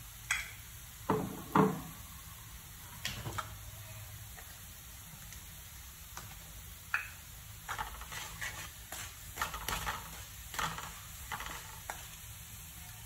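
Minced garlic frying gently in a little oil in a metal wok: a faint sizzle with scattered pops and crackles, the loudest about a second and a half in. Near the end a wooden spatula stirs and scrapes the garlic across the wok.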